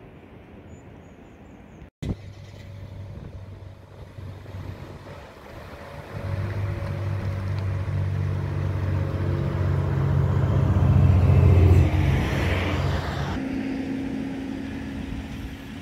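A tour coach's diesel engine approaching and passing close by, growing steadily louder to a peak about twelve seconds in. It breaks off suddenly near the end, and a steady low hum takes over.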